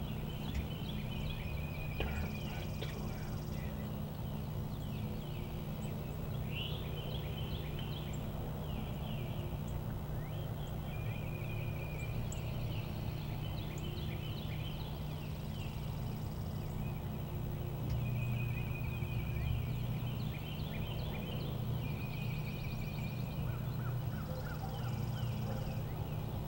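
Wild turkeys gobbling, over songbirds chirping and trilling again and again, with a steady low hum underneath.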